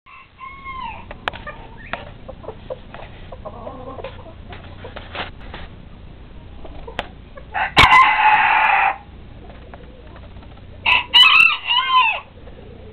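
Bantam roosters crowing: a loud, harsh crow of just over a second about eight seconds in, and a second, shorter crow with a rising-and-falling pitch near the end, over soft clucks and calls from the flock.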